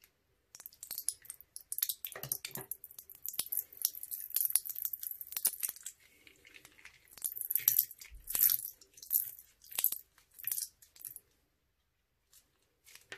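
Slime squelching and crackling as it is squeezed out of a plastic piping bag and pressed by hand, in a fast irregular run of sticky clicks and pops with the bag crinkling; it stops about two seconds before the end.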